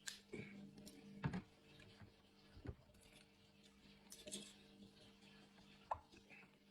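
Faint eating sounds: scattered short clicks and wet smacks of someone chewing and picking meat off a cooked lamb head, over a low steady hum.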